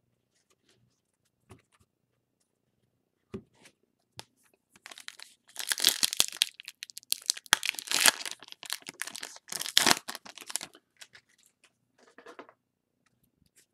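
Foil 2019 Topps Gallery card pack being torn open and crinkled by hand: a burst of loud tearing and crinkling starting about five seconds in and lasting about five seconds, after a few faint taps.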